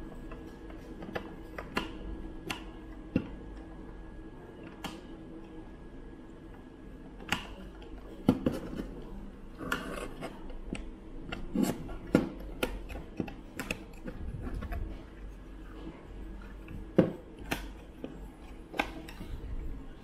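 Clear acrylic case panels clicking, tapping and rubbing against each other and the circuit boards as they are pressed and slotted into place around a Raspberry Pi 4B: scattered sharp clicks, busiest in the second half.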